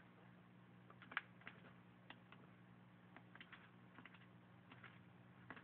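Near silence: faint, irregular light taps and scratches on cardboard as a ball python coiled around a mouse shifts against the floor of a cardboard box, the loudest about a second in, over a low steady hum.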